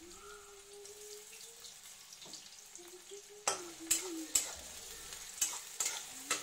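Chopped onion sizzling in hot oil in a metal kadhai, with a spatula scraping and knocking against the pan several times from about halfway through as the onion is stirred.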